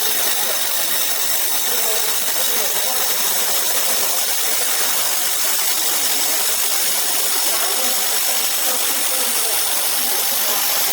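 Laser welding machine running a weld on 6 mm carbon steel, giving a steady, unbroken hiss.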